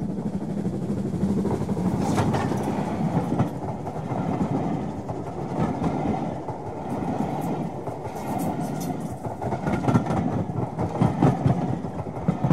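A train running past: a steady rumble of wheels on the rails, with irregular clicks as the wheels cross rail joints.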